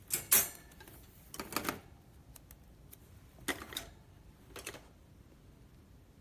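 Metal cans clattering and knocking against the steel shelves of a tiered can organizer rack as it is handled, in four short bursts, the first the loudest.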